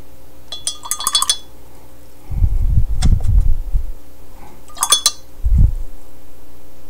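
Two short runs of light clinking and rattling of small hard objects, about half a second in and again about five seconds in, with low thumps and rumble from the camera being handled between and after them.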